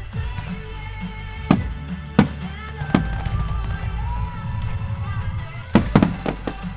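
Fireworks going off in sharp bangs over loud music with a heavy bass line, with a quick cluster of bangs near the end.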